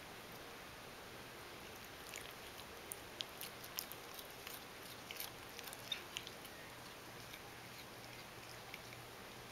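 Domestic cat chewing a blade of fresh grass: a run of small, quick clicks and crunches from its bites, busiest in the middle, over a faint steady hum.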